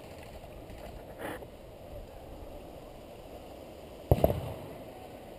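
Steady rustling handling noise on a body-worn action camera's microphone, with one sharp knock a little after four seconds in, the loudest sound here.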